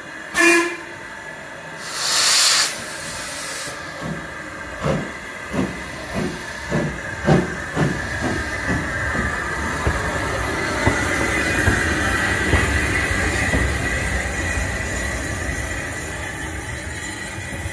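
LMS Ivatt Class 2 2-6-2T steam locomotive 41312 starting away: a short whistle toot, a burst of steam hiss from the cylinder drain cocks, then exhaust chuffs that quicken, and a steady rumble and hiss as it rolls past close by.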